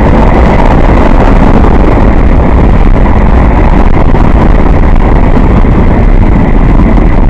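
Freight train of empty grain cars rolling past: a steady, loud rumble of wheels on rail, with wind buffeting the microphone.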